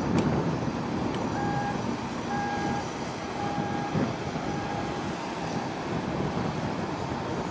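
Steady low rumble of outdoor noise with a warning beeper, like a vehicle's reversing alarm, sounding five times about a second apart and fading out.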